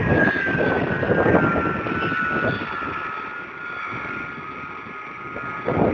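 Boeing 747-200 jet engines running as the airliner moves along the runway: a rushing noise with a high whine that slowly falls in pitch as it passes, the rush fading about halfway through.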